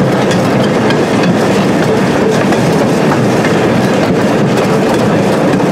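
A slow-moving train running over the track: the steady rumble of wheels on rail with irregular clatter, heard from an open car riding behind the locomotive.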